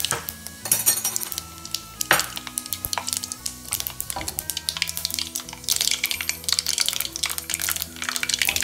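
Mustard and fenugreek seeds crackling and popping in hot oil in a metal pan, the crackle growing denser and louder about six seconds in, over soft background music.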